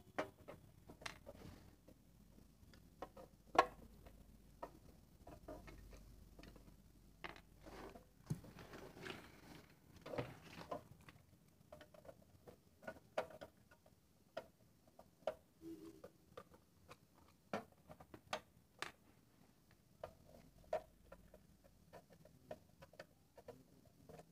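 Faint, irregular clicks and small scrapes of a screwdriver working the outer nuts loose on a small amplifier's powder-coated case, with one sharper click about three and a half seconds in.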